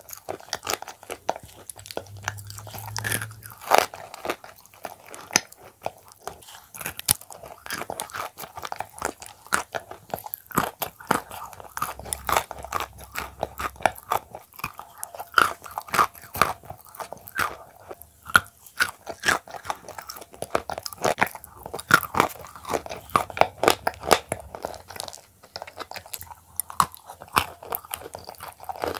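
Shortbread cookies coated in a thick paste being bitten and chewed right at a clip-on microphone: dense, irregular crunches throughout.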